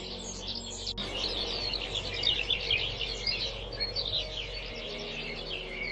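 Many small birds chirping and twittering together in a dense chorus, with a steady low tone underneath.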